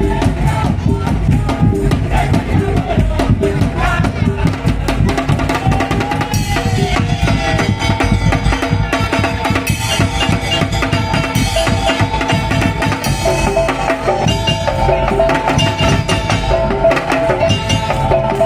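Madurese daul (tongtong) percussion ensemble playing: drums and wooden slit drums keep a dense, fast beat under a melody line.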